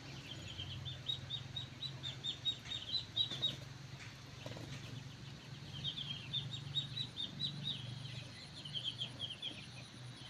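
Whistled calls used to lure a decoy rooster: two quick runs of short, high, falling chirps, about four or five a second, over a faint steady low hum.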